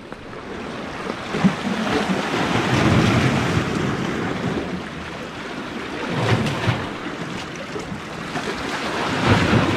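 Ocean surf washing against jetty rocks, swelling in surges every few seconds, with wind on the microphone.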